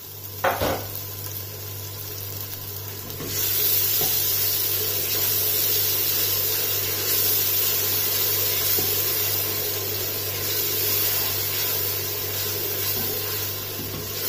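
Tomato paste sizzling in hot oil in a steel pressure cooker as it is stirred in with a wooden spatula; the sizzle jumps louder about three seconds in and then holds steady. A brief thump comes just after the start.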